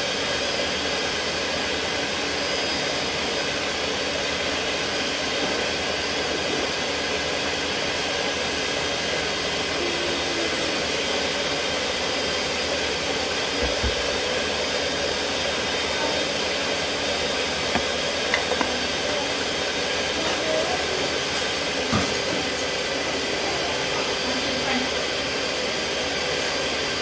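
Electric stand mixer running steadily, beating margarine, sugar and eggs for a butter cake until light and fluffy, with a few faint knocks.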